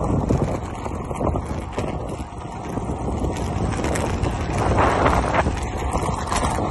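Wind buffeting the microphone of a phone carried on a fast-moving bicycle, with rumble from the ride over the road.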